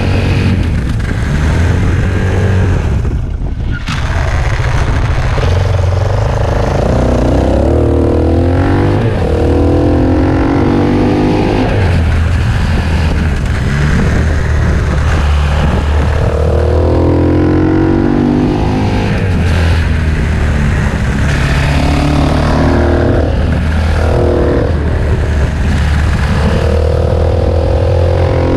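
KTM 690 SMC-R's single-cylinder engine under way, revving up through the gears several times with the pitch climbing and dropping back at each shift. There is a short lull off the throttle about three seconds in.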